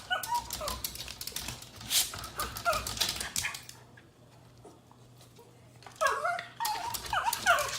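A dog whining and whimpering in short cries that bend up and down in pitch, with a few light clicks among them. The cries come in two bouts, with a quiet pause of about two seconds in the middle.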